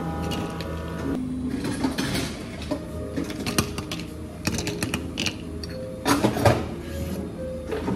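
Ice cubes tipped from a metal scoop into stainless steel cups, clattering against the metal in several bursts, the loudest about six seconds in.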